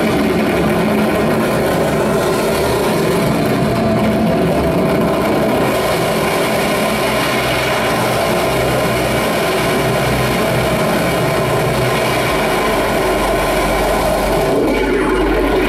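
Loud, dense, continuous noise drone from a live electronic noise set: synthesizer and electronics with an electric guitar played through effects. A deeper low rumble joins about twelve seconds in.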